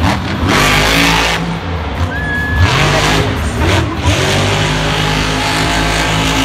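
Monster truck's supercharged V8 engine revving hard at high load, the roar surging several times.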